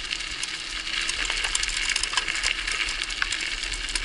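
Wheels of a dog-drawn rig rolling fast over a gravel forest track: steady crunching with many small clicks and rattles of grit and stones.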